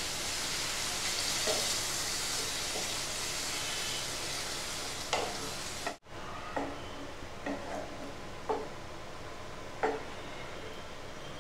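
Chicken curry sizzling and bubbling in a nonstick pan, just thinned with a cup of water, while a spatula stirs it. About halfway through the hiss drops off abruptly, leaving a quieter simmer with a few separate spatula scrapes against the pan.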